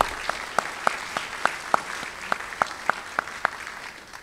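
Audience applauding. One pair of hands claps sharply and evenly over the rest, about three to four claps a second, stopping about three and a half seconds in, and the applause fades out near the end.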